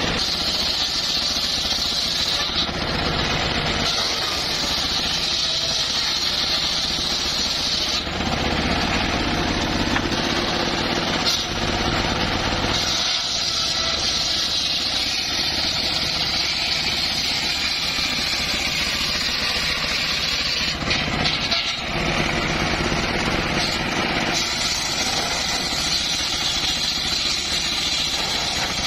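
Homemade engine-driven circular saw running steadily while sawing small timber. A high whine comes and goes in stretches of a few seconds over the steady drone of the motor.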